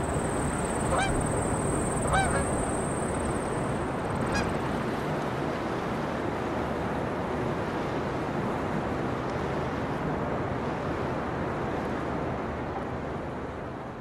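Canada geese honking, three short calls in the first few seconds, over a steady rushing background.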